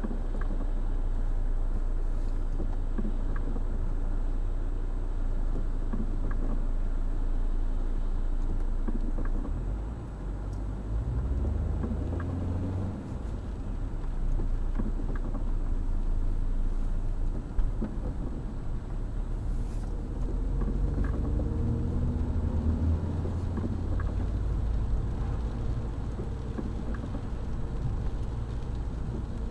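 Car cabin noise on a wet road: a steady low rumble of engine and tyres. It dips as the car slows, and a rising engine note follows as it speeds up again in the second half. Scattered light ticks run through it.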